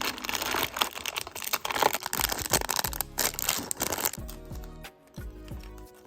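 Plastic packaging crinkling and rustling as it is handled, with small clicks, for about four seconds, then stopping; soft background music runs under it and is left alone near the end.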